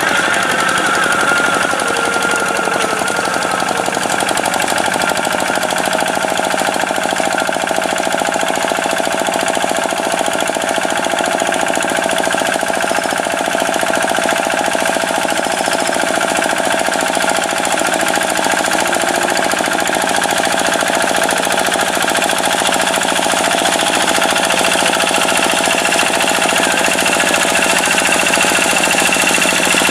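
Tractor engine running steadily with a rapid, even knocking beat.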